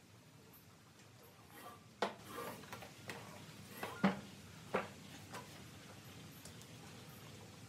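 Wooden knocks and light scraping as a heavy wooden table base is handled and set down on a round wooden tabletop. There are three sharp knocks: one about two seconds in, the loudest at about four seconds, and one just after.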